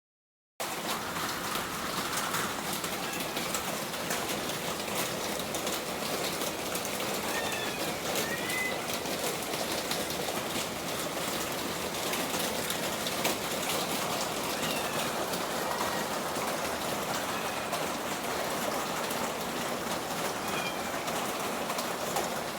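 Steady, heavy rain falling, with many fine drop ticks. A few short bird chirps come through it now and then.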